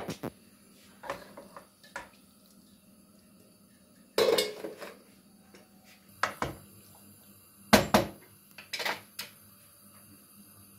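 Metal kitchenware clattering: a stainless steel colander and a coated cooking pot knock and scrape together as cubed beef is tipped into the pot on a gas hob. There are several separate clanks, the loudest about four and eight seconds in.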